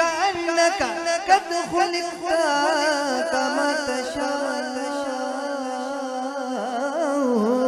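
Man singing a naat in a long, wordless melismatic run, the pitch bending and wavering, over a steady low held drone.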